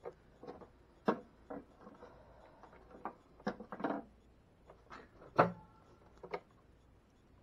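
Irregular clicks and knocks of hand tools and wires being handled at a plastic electrical junction box, about a dozen over several seconds, the loudest a sharp knock about five and a half seconds in.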